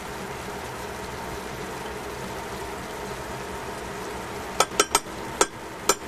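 Vegetables in sauce simmering and sizzling in a stainless steel pan, a steady hiss. Cooking tongs knock against the pan five times in quick succession near the end.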